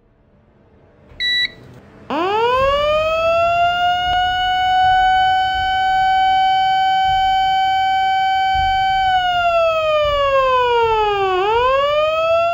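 A short high beep, then a siren winds up from low to a steady high tone, holds it for about seven seconds, slides down in pitch and rises again near the end.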